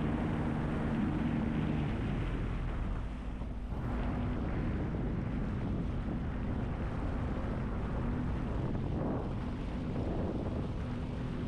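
Jet ski engine running steadily at low speed, with wind on the microphone. The sound dips briefly about three seconds in.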